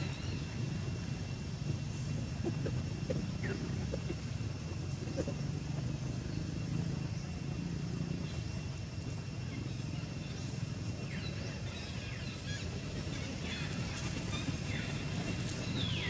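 Outdoor background with a steady low rumble, and a few short, high calls falling in pitch, mostly in the last few seconds.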